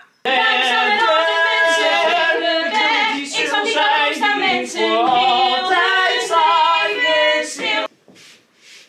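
A small group of singers singing a part-song together in harmony, sustained notes with vibrato, with no accompaniment clearly heard. The singing breaks off abruptly about a second before the end.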